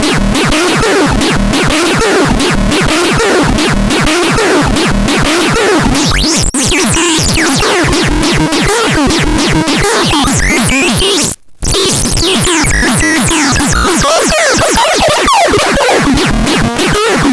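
Loud electronic synthesizer sounds over a rapid pulsing beat, with sweeping pitch glides and a brief cut-out about two-thirds of the way through.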